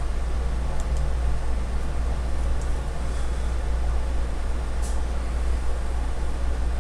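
Steady low hum of background room noise, with a few faint, light ticks from a hex key on the valve block's mounting bolts as they are tightened.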